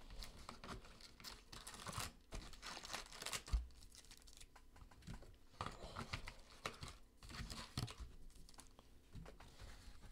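Faint, irregular crinkling and rustling of foil-wrapped Donruss Optic basketball card packs as they are lifted out of a cardboard hobby box, with a few light knocks of cardboard.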